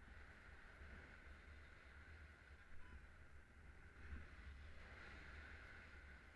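Near silence: faint airflow against the camera in paraglider flight, a steady low rumble with a light hiss.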